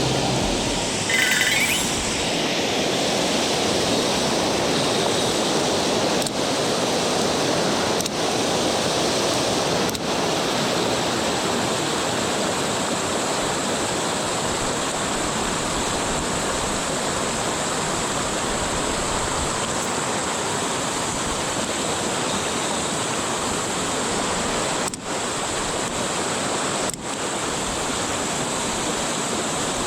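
Steady rush of a mountain river's current tumbling over rocks, an even hiss of moving water. A short high-pitched sound cuts in about a second in.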